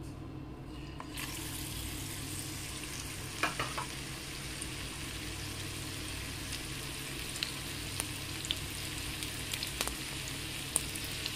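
Cabbage fritter (okoy) batter hitting hot cooking oil in a pan: sizzling starts suddenly about a second in and runs on steadily as the fritter fries, with scattered pops and crackles.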